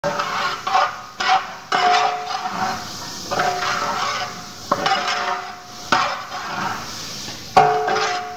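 Long metal ladle scraping and knocking against a big metal cooking vessel (varpu) as diced carrots are stirred in oil, in irregular strokes. Each stroke leaves the vessel ringing briefly.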